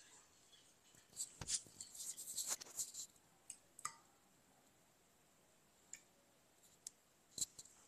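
Milk poured from a carton into a glass jug: faint crackly splashing and gurgling for a couple of seconds about a second in, then a few scattered faint clicks.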